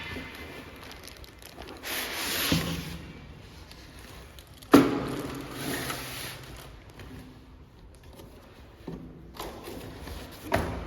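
Handling noises of an NVR unit and its packaging being unboxed: rubbing and scraping in bursts, with one sharp knock about five seconds in.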